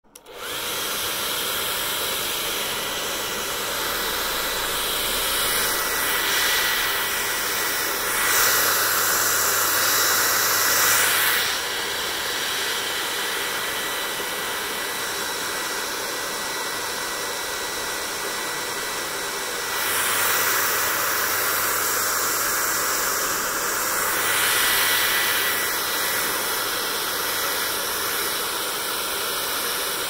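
Handheld hair dryer blowing on long wet hair: a steady rush of air with a thin motor whine running through it. It gets louder and brighter for a few seconds twice, about a third and about two-thirds of the way through.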